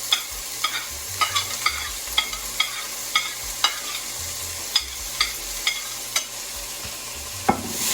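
Chopped onion, garlic, scallion and thyme sautéing in a hot pot: a steady frying sizzle, with a utensil clicking against the pot again and again as it is stirred, and a louder knock near the end.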